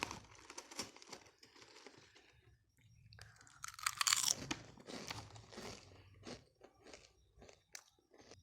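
Close-up crunching and chewing of a crisp herbal snack: irregular sharp crunches, with the loudest burst of bites about four seconds in and lighter chewing crunches after it.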